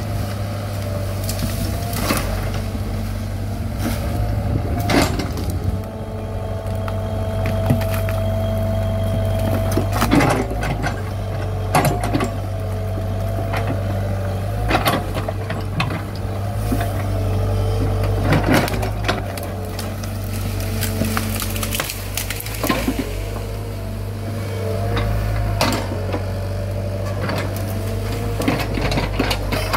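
Komatsu PC75 mini excavator's diesel engine running steadily under load, with a whine that rises and falls as the hydraulics work the arm and bucket. Repeated sharp cracks and snaps as brush, branches and roots are broken and crushed by the bucket.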